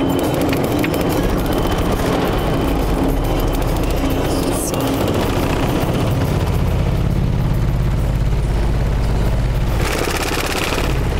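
Car driving slowly through a ferry's steel vehicle deck and ramps, heard from inside the cabin: a steady low rumble of engine and tyres that grows heavier after about a second, over a steady hum that stops partway through.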